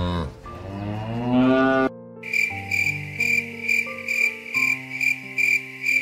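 A cow mooing, its call rising in pitch and ending about two seconds in. A green bush cricket (katydid) then chirps in an even, pulsing rhythm, about two chirps a second.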